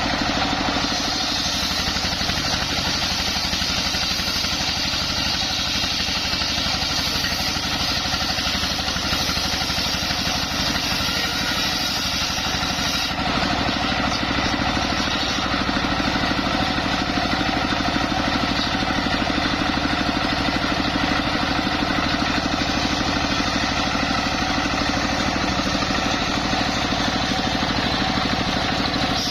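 Engine-driven homemade circular sawmill running steadily, with a constant engine drone under a high hiss; the sound changes abruptly about halfway through.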